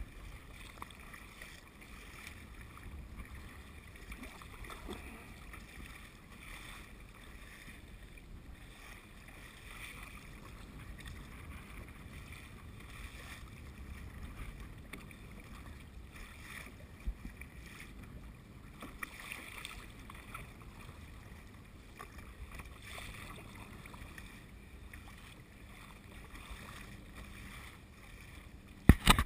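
Kayak being paddled through open-ocean chop: water washing along the hull and the paddle blades dipping and splashing every couple of seconds, with a low wind rumble on the microphone.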